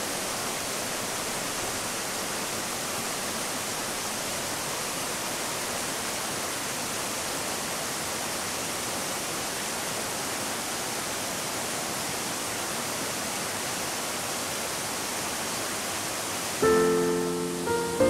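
Steady, even rush of mountain stream water cascading into a pool. Piano music starts near the end.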